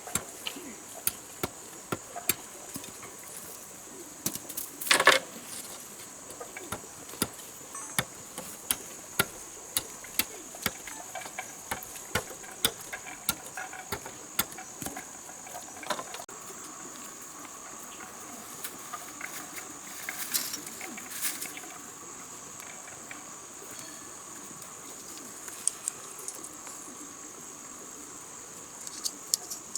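Steady, high-pitched chorus of rainforest insects, with a second, lower steady insect tone joining about halfway through. Frequent sharp clicks and knocks sound over it, the loudest about five seconds in.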